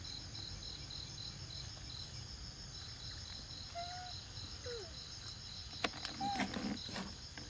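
Forest insects (crickets or cicadas) singing: a steady high buzz with a fast pulsing chirp, about four or five pulses a second. A few short squeaks and a click sound near the end.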